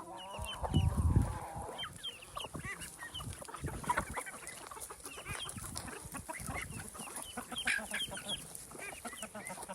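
Chickens clucking and calling, with many short high chirps throughout. In the first two seconds a longer, drawn-out call and a loud low thump stand out.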